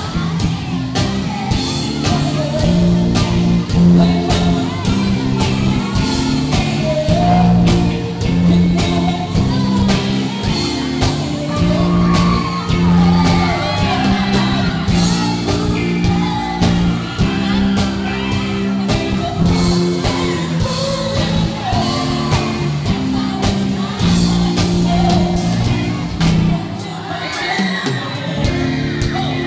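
A male singer sings a pop ballad live through a microphone and PA, over amplified accompaniment with sustained low chords and a steady beat, heard in a large hall.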